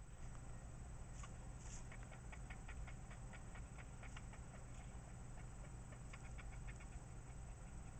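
Pet gerbil chattering: faint, quick clicks at about five a second, in a long run of several seconds and then a shorter one.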